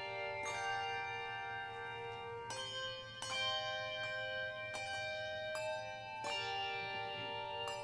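Handbell choir playing slowly: clusters of bell notes struck together every one to two seconds, each chord left ringing and overlapping the next.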